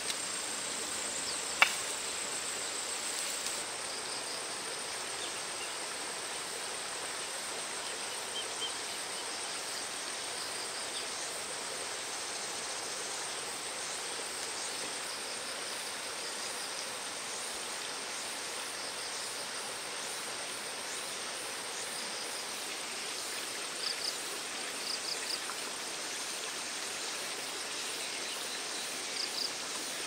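Outdoor rural ambience: a steady, high insect trill over a constant hiss. A single sharp click comes about one and a half seconds in, and a few short high chirps come later on.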